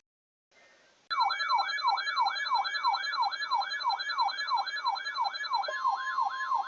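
Electronic emergency-alert siren tone: a loud, rapidly repeating falling sweep, about three a second, over steady high tones, joined by a steady tone near 1 kHz near the end. It announces the start of a new weather warning.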